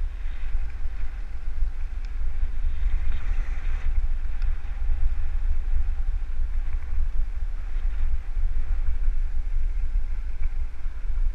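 Wind buffeting the microphone of a camera moving along a road, a steady low rumble with a fainter hiss of road noise above it.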